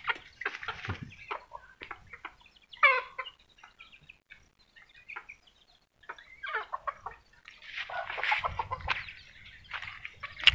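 Domestic chickens clucking in short, separate calls, with one longer call falling in pitch about three seconds in and a busier run of clucking in the second half.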